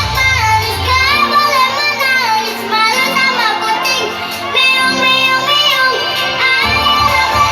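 A children's song played loud: a child's voice sings a melody over an electronic backing track with a steady bass line.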